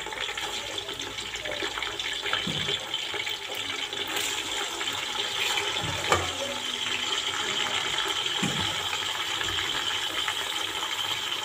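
Raw chicken pieces sizzling in hot oil with golden-fried onions in a metal pot, a steady hiss, as the chicken starts to brown. A slotted spoon stirring the pieces knocks and scrapes against the pot a few times.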